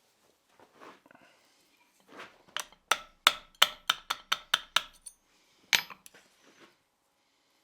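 Hammer striking steel: a quick run of about eight ringing metal blows, then a single one about a second later, after some softer clinks of handling.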